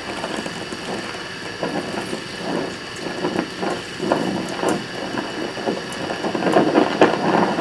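Oxy-acetylene welding torch hissing with irregular crackles while tack-welding thin steel tubing, getting louder toward the end.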